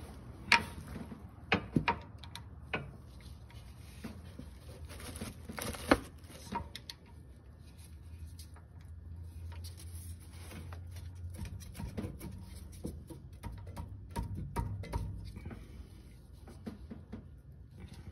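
Steel hand tools clinking and knocking as a box-end wrench is fitted onto a tight oil drain plug and a ratchet is pushed into it for extra leverage. Sharp metallic clicks come about half a second in and a few more over the next two seconds, the loudest knock about six seconds in, then softer ticks and taps later.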